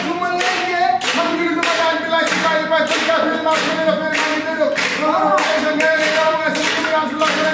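Voices singing a held melody over sharp, evenly spaced strikes, about two a second, in a Senegalese sabar drumming performance.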